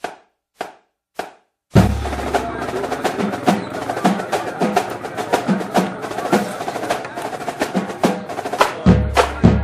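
Four sharp stick clicks about half a second apart as a count-in, then drums start playing: fast snare rolls and steady drum strokes.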